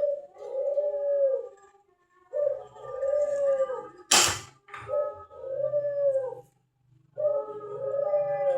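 An animal howling and whining: a run of drawn-out calls, each rising and falling in pitch, with short pauses between them. A single sharp noisy burst cuts in about four seconds in.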